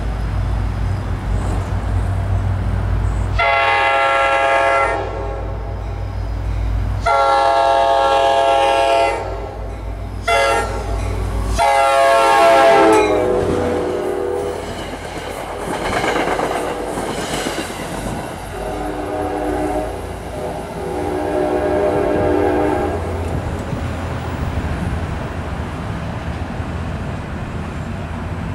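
F40PH-3C diesel locomotive approaching and running through at speed, its multi-chime air horn blowing long, long, short, long, the grade-crossing signal. The pitch drops as the locomotive passes, then the passenger cars go by with a rumble and wheel clatter. Two more lower-pitched horn blasts sound as the train pulls away.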